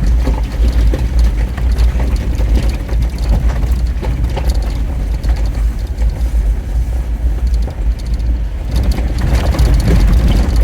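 Jeep Wrangler being driven, a loud steady low rumble of engine and road with irregular rattling and clicking over it.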